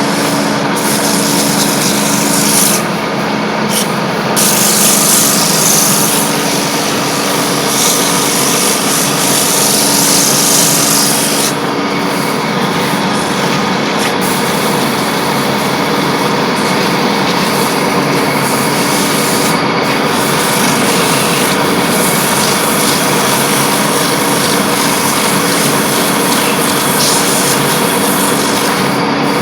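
Copying wood lathe turning a baluster, its cutter shaving the spinning wood: a steady motor hum under a loud cutting hiss that swells and eases.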